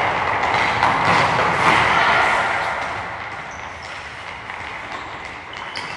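Echoing indoor-hall noise during a children's football practice: a blur of overlapping children's voices that fades after two to three seconds, leaving a quieter stretch with a few scattered ball thumps.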